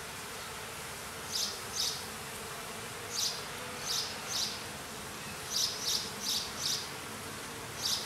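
Honeybees buzzing around an open hive as a frame is held out: a steady hum, with short high chirps coming in groups of two or three.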